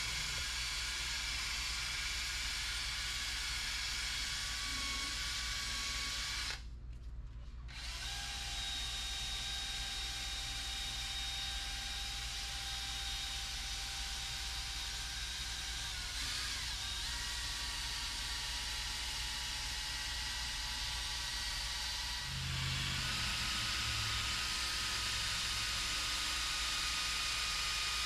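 Cordless drill spinning a stiff drill brush against a cleaner-soaked fabric seat belt, a steady motor whine with scrubbing hiss. It cuts out for about a second around seven seconds in, then runs on, its whine changing pitch a couple of times.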